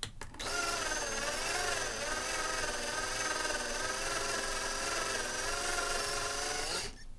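Small electric drill running steadily for about six seconds, its whine wavering slightly in pitch as the bit drills out the rivet on a 1/64 diecast car's base; it starts about half a second in and stops near the end.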